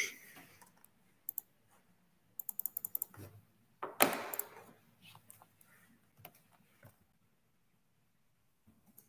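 Computer keyboard typing: scattered key clicks with a quick run of them about two and a half seconds in, and a short louder noise about four seconds in.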